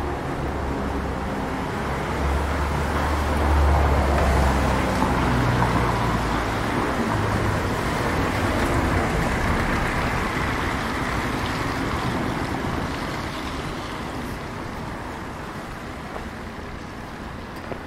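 A motor vehicle passing by: a low engine rumble and road noise swell to a peak about four seconds in, then fade away slowly.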